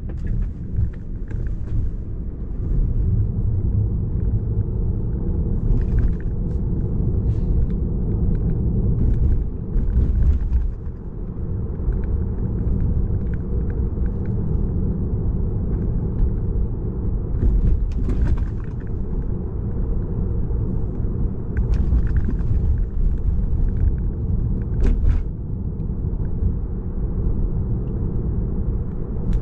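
Steady low road and tyre rumble inside the cabin of a moving Tesla electric car, with no engine sound and a few faint clicks.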